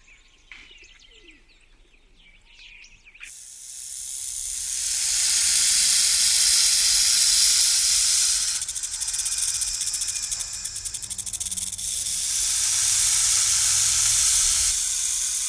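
Faint chirps of small birds, then an abrupt change about three seconds in to a long, loud hiss that swells up over a second or so and stays steady, fluttering for a few seconds in the middle.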